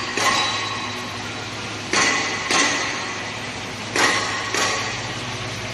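Rotary die cutter running: a steady low hum with sharp knocks that come in pairs, about half a second apart, roughly every two seconds.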